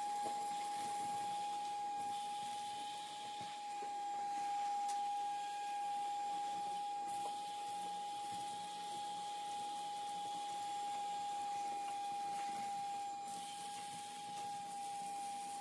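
Milwaukee shop vacuum running steadily with a constant whine and rushing air, sucking loose debris and soot off the floor of a boiler's firebox through its hose.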